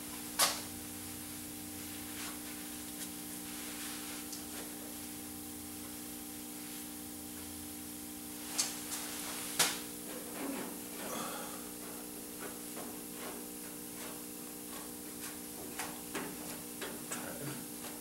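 Steady hum with a few sharp clicks and knocks, then soft, irregular scraping from about ten seconds in: a plastic spreader working short-strand fiberglass filler over the welds of a car's trunk pan.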